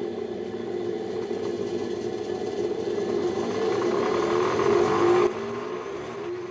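Homemade belt sander running, its motor spinning the drum through a V-belt and pulleys with a steady whirring hum that grows slightly louder. The sound drops abruptly about five seconds in and then fades.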